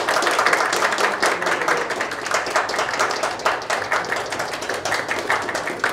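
Audience applauding: many hands clapping in a dense, steady run.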